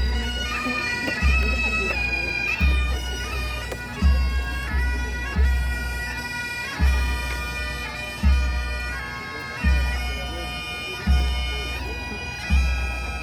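Pipe band playing: Highland bagpipes sounding a melody over their steady drones, with a low drum beat about every second and a half.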